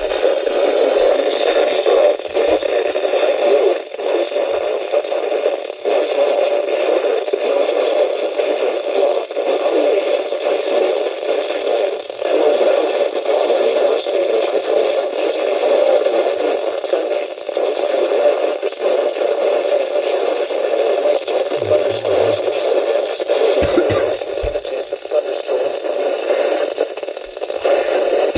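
Weather radio receiver hissing with static on a weak, barely received signal, with no voice coming through. A few sharp clicks and crackles come near the end.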